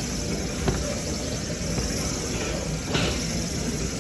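Steady rumble of a car on the move, heard from inside the cabin, with a short tick about 3 seconds in.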